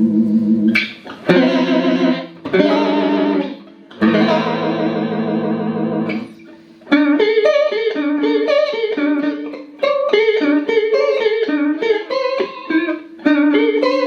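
Clean electric guitar played through a Boss CE-5 Chorus Ensemble pedal into two Roland JC-120 amps, with the chorus giving the notes a wavering shimmer. It starts with ringing, sustained chords. From about halfway it moves into a quick run of separately picked single notes.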